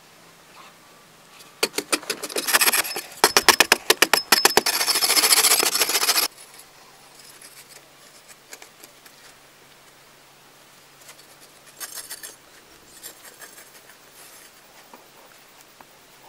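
A hand digging tool working packed earth: a fast, dense run of sharp strikes and scrapes that cuts off suddenly about six seconds in. Faint scattered scrapes and taps follow.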